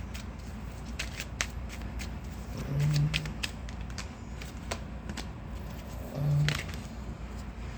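Tarot cards being shuffled and handled, with scattered sharp snaps and clicks. Two short low hums come in about three and six seconds in.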